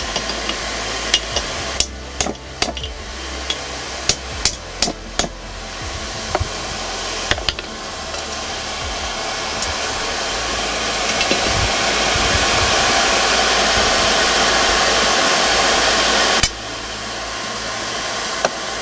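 Hand hammer striking hot steel on an anvil, about a dozen blows over the first seven seconds, drawing a bar out to a point. Then a steady rushing forge noise that slowly grows louder and cuts off suddenly near the end.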